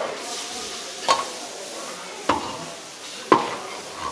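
Meatballs sizzling as they are stir-fried in a large wok, with a metal wok shovel scraping through them and clanking against the wok three times, about a second apart.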